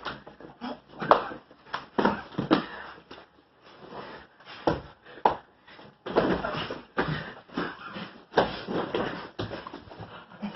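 Two grapplers struggling on foam mats: irregular bursts of heavy breathing and grunting, with thumps and scuffs of bodies and hands on the mats.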